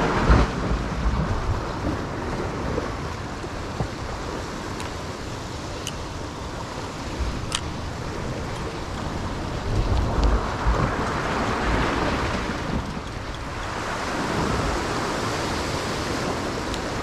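Ocean swell surging and washing against the base of a rock sea cliff, swelling louder near the start, again about two-thirds of the way in, and once more near the end. Wind gusts on the microphone add a low rumble.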